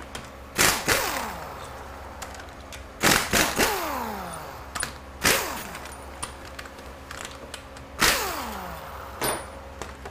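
A hammer striking a steel wrench on a tight 13mm transmission bolt: about eight sharp metal blows in uneven clusters a second or few apart, each ringing briefly with a falling pitch, over the steady hum of a shop fan.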